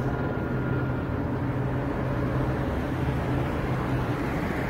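Steady low hum and rumble of vehicle noise in an urban lot, with no speech or sudden sounds.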